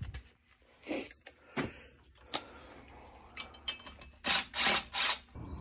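Cordless driver run in three short bursts near the end, turning the bolts of a blower motor's mounting bracket, after scattered clicks and taps of tools and metal parts being handled.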